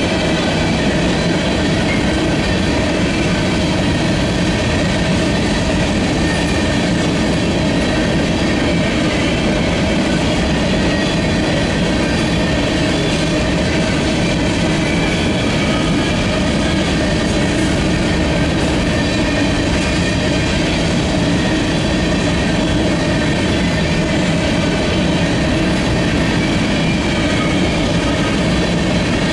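Covered hopper cars of a long freight grain train rolling steadily past: a continuous, even rumble and rattle of steel wheels on the rails.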